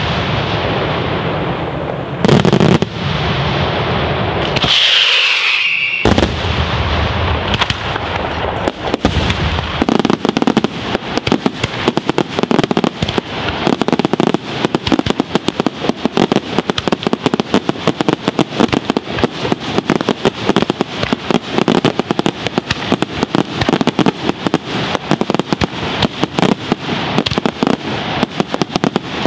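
Daytime aerial fireworks shells bursting overhead. The first seconds bring a few heavy bangs and a brief shrill whistle about five seconds in. From about ten seconds in, there is a dense, continuous crackling of many small rapid reports.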